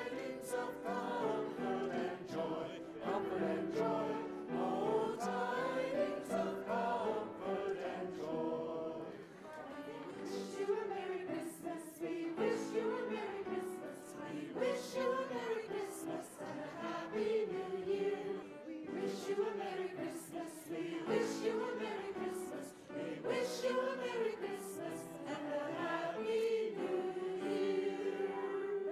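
A choir singing a slow melody in held, gently gliding notes.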